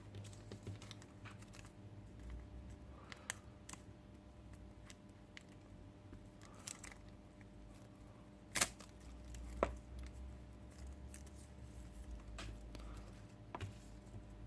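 Faint clicks and rustling as small plastic robot-kit parts and a wire are handled, with two sharper clicks a little past the middle.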